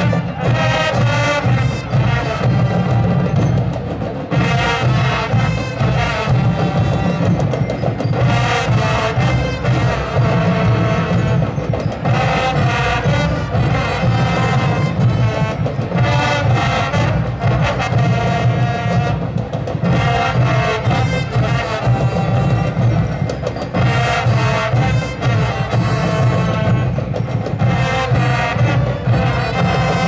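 School brass-and-percussion band playing a piece loudly, brass melody over drums.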